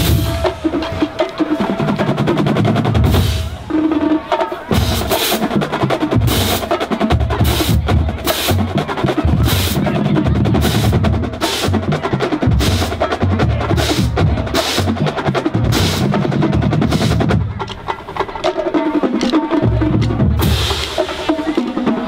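Marching band drumline playing a cadence: snare drums and bass drums under a cymbal line crashing on a steady beat. The playing drops off briefly about three quarters of the way through, then comes back in.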